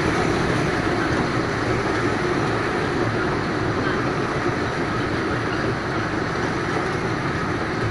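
Kurobe Gorge Railway narrow-gauge trolley train running slowly along the track past another train at the platform: a steady rumble of wheels on rail with a hiss, easing slightly over the seconds.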